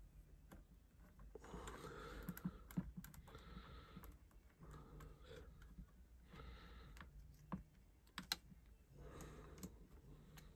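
Faint handling noise of small plastic and metal motor parts being fitted back together by hand: scattered sharp clicks and short patches of soft scraping every few seconds.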